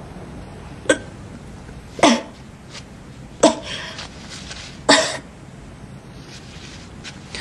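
A woman retching with nausea: four short, sharp gagging heaves, each falling in pitch, coming every second or so.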